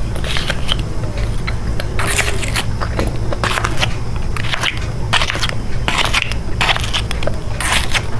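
Close-up biting and chewing of chocolate: irregular crisp crunches every half second to a second, over a steady low hum.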